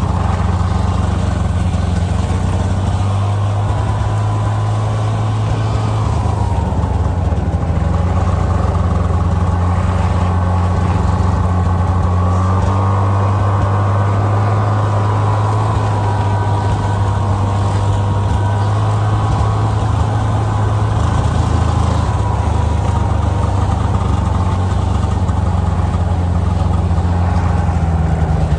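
Engine of a snow vehicle running steadily at cruising speed while towing a passenger sled over snow, its pitch wavering only slightly.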